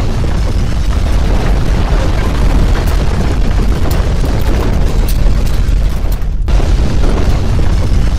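Earthquake rumble sound effect: a loud, continuous deep rumbling noise with scattered crackles, briefly thinning out about six seconds in.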